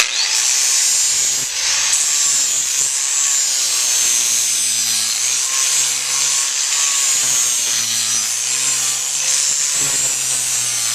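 Electric power grinder starting up abruptly and grinding down the flared wall of a horse's hind hoof: a steady, loud rasping hiss with a high whine that wavers slightly.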